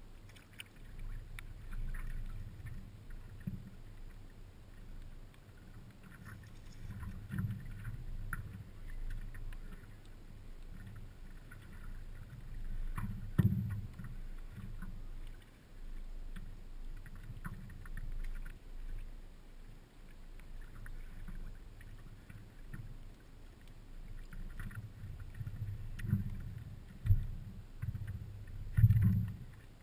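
Water lapping and sloshing against the hull of a stand-up paddleboard, with a few knocks on the board: the loudest comes about halfway through and several more come near the end.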